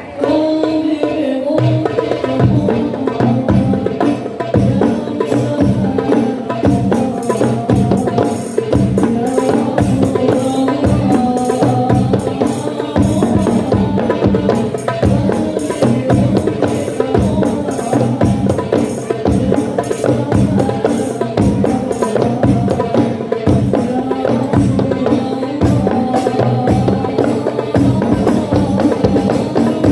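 Voices singing a devotional song in unison over steady, rhythmic hand-drum and tambourine-like percussion, with the drumming starting about a second in.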